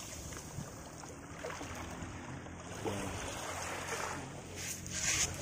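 Small waves washing up and draining back over a sandy shore, a shallow swash, with a faint steady low hum underneath. A louder rush of water comes near the end.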